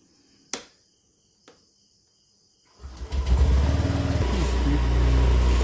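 A single click about half a second in, then about three seconds in a Honda fuel-injected scooter's single-cylinder four-stroke engine starts and settles into a steady idle.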